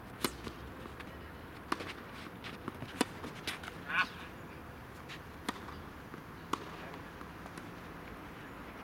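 Tennis ball struck by rackets and bouncing on the court during a rally: a string of sharp pops over the first seven seconds, the first being the serve just after the start.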